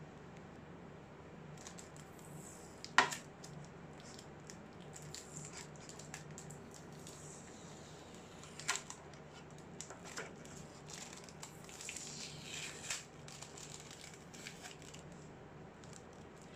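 Handling noise from a plastic screen-protector tray and a plastic bag of accessories: a few sharp plastic clicks and taps, the loudest about three seconds in. Later comes a couple of seconds of crinkling plastic wrap.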